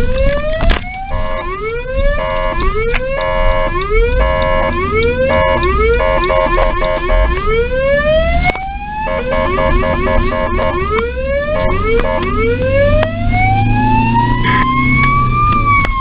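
Ambulance siren sounding repeated rising whoops, each sweeping up in pitch over about a second, alternating with a rapidly pulsing multi-tone warble. Near the end one longer whoop climbs slowly for about three seconds before falling away.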